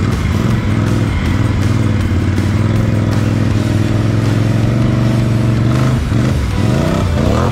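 ATV engine running at a steady pitch under throttle while riding through a flooded mud trail. About six seconds in, the steady note gives way to pitches that sweep up and down.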